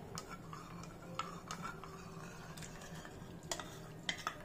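A steel spoon clinking and scraping against a ceramic bowl as custard powder paste is stirred, then scraped out into hot milk: light, scattered taps over a faint steady low hum.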